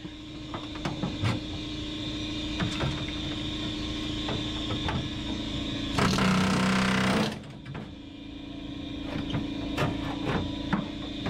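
Pneumatic air hammer with a slotted panel cutter chattering through the car's trunk-floor sheet metal, running lighter and unevenly with clicks for most of the time, then at full power for about a second past the halfway point.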